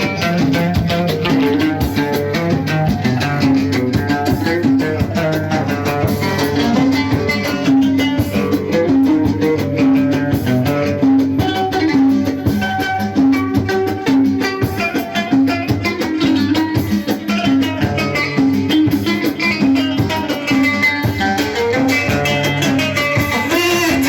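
Instrumental passage of live Moroccan chaabi wedding music: a quick, busy melody over drums, with no singing.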